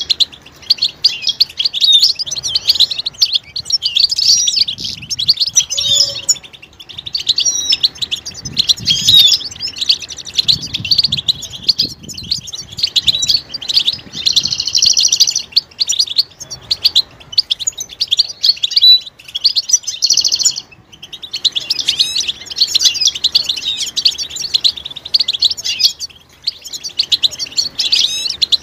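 European goldfinches singing and chattering together, a dense run of rapid, high twitters and trills. It breaks off briefly twice, and a harsh buzzy note comes near the middle.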